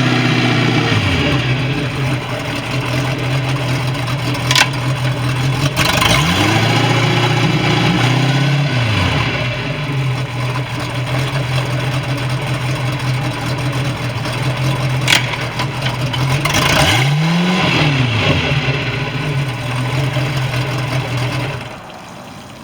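MerCruiser sterndrive engine running at idle and revved up and back down twice. A sharp click comes shortly before each rev, and the engine sound drops away near the end.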